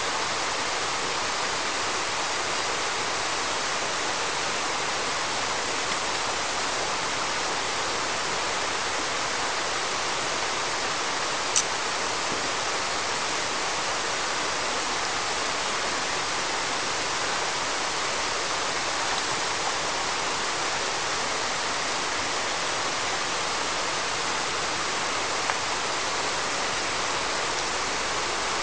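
Steady rushing of river water, an even unbroken noise, with one brief click about halfway through.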